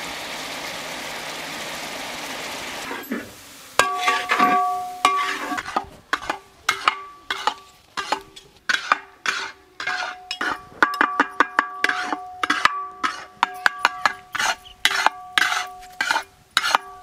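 Eggs sizzling in hot oil for about three seconds, then a metal spatula stirring and scraping in a metal cooking pan, with rapid irregular clanks against the pan.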